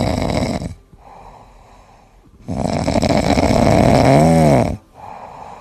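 A sleeping cat snoring: two loud snores, the first ending just under a second in and the second starting about halfway through, with a whistling note that rises and falls near its end. Quieter breathing lies between them.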